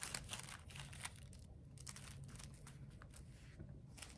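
Faint rustling and crinkling of tissue paper being handled and pressed onto a glued paper plate, in small irregular clicks and scrapes.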